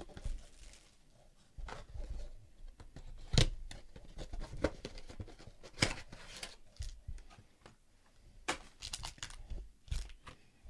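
Shrink wrap being torn and pulled off a sealed cardboard box of Intrigue basketball cards, crinkling, then the box lid opened and the cardboard insert lifted out, with scattered sharp taps and knocks of cardboard being handled.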